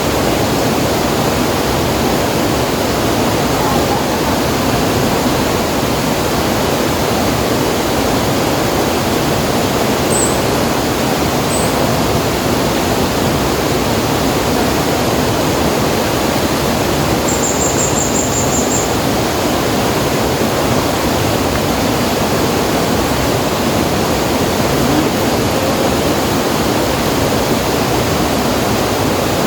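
Steady rushing of river water. A few faint high chirps come about ten seconds in, and a short, rapid high trill follows a few seconds later.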